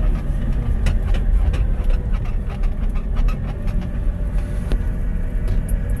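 JCB telehandler's diesel engine and drivetrain running steadily under way in fourth gear, heard from inside the cab as a low rumble with a faint whine and scattered light clicks and rattles.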